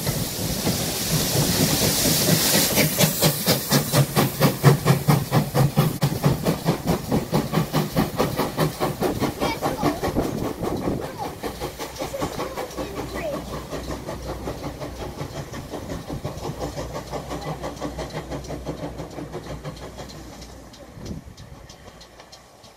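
Great Western Railway pannier tank locomotive No. 6412 and its train passing and moving away. Steam hisses loudly at first, then a fast, regular beat carries on and fades as the train recedes.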